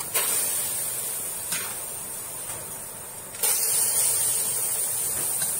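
A steady hiss that jumps suddenly louder about three and a half seconds in, with a light tap of a spoon against a metal cooking pot about a second and a half in, as boiled rice is spooned into the pot.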